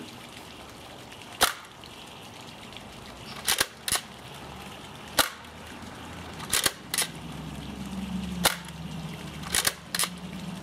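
X-Shot Insanity Berzerko foam dart blaster being fired with Elite darts: a string of sharp plastic snaps every second or two, several coming in quick pairs.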